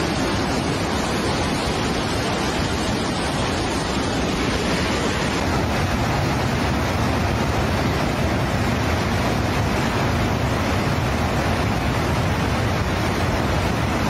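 Swollen, muddy flood torrent rushing in a loud, steady, unbroken noise of moving water.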